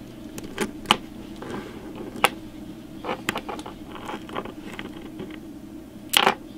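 Small sharp clicks and light scrapes of plastic and metal parts as an AFX Magna-Traction HO slot car chassis is taken apart by hand, with the loudest clicks near the end.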